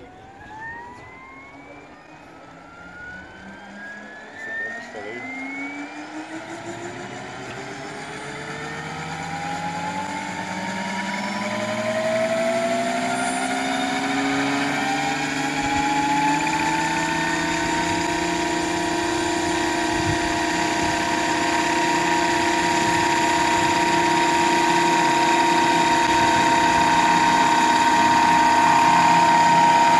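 Radio-controlled scale Bell UH-1 Huey helicopter spooling up on the ground: the whine of its drive and rotors rises in pitch and grows louder over the first fifteen seconds or so. It then holds a steady pitch as the rotor reaches speed.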